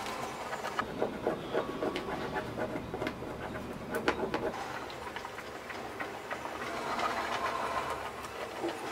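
Small scissors snipping through fabric, a run of irregular clicks over the first half, with the fabric rustling as it is handled.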